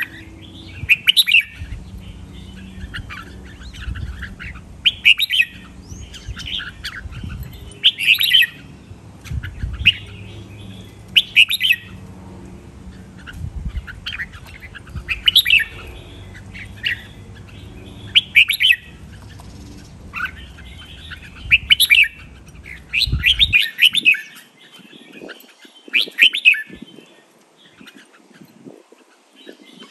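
Red-whiskered bulbul singing short, clear song phrases over and over, one about every two seconds.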